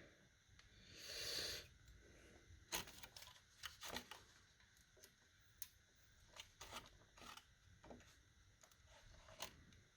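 Faint scattered metal clicks and taps, with a brief scraping rustle about a second in, from hand work at a compressed valve spring on a Holden VN V8 head while the valve keepers are fitted into the retainer.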